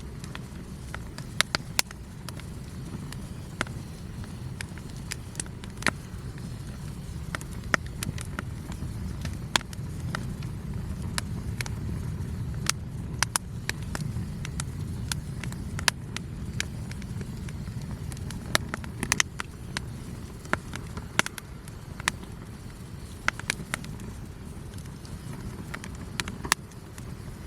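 Wood campfire crackling, with sharp snaps and pops at irregular intervals over a steady low rumble.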